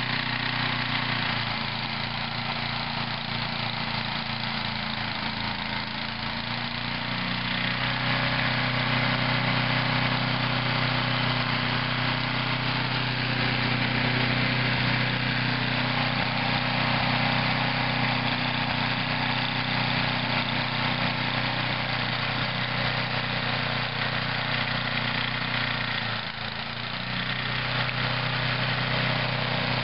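Toro snow thrower engine running steadily, getting a little louder about a quarter of the way in and dipping briefly near the end.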